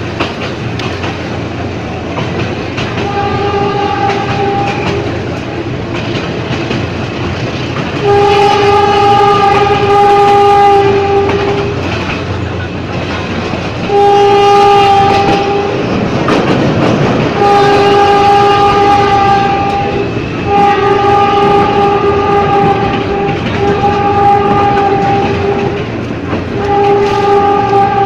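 Ex-JR 203 series electric multiple unit running on the rails while its horn sounds in a series of about seven steady, fixed-pitch blasts, some long and some short, each much louder than the running noise.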